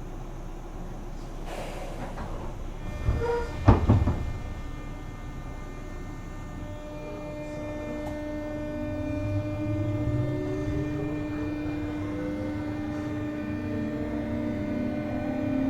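JR West 201 series electric train with thyristor chopper control, heard on board: a few sharp knocks about three to four seconds in, then the chopper's steady whine sets in with motor tones rising in pitch as the train picks up speed.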